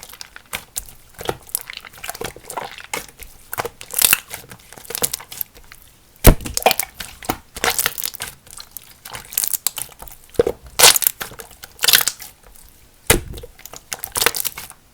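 Clear jelly-textured slime full of air bubbles being squished and folded by hand: an uneven run of sticky pops and crackles as trapped air bubbles burst, with a few louder pops along the way.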